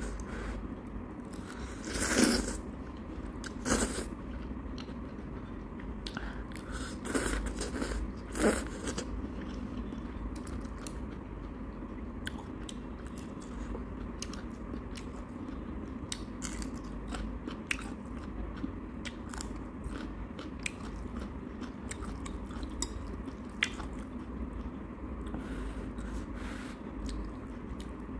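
A person eating instant ramen noodles: a few loud slurps in the first nine seconds, then steady wet chewing with many small clicks of the mouth and chopsticks.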